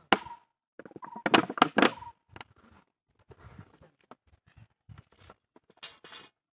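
Handling noise from a plastic jar being carried and set down on a brick path: sharp knocks and thumps, loudest in a cluster between one and two seconds in, with fainter scuffs and clicks after, and a short rasping noise near the end.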